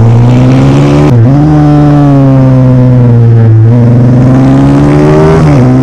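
Pit bike's small single-cylinder four-stroke engine under hard throttle, heard onboard while racing, with wind rush. The engine note climbs steadily and dips briefly about a second in, around the middle and near the end.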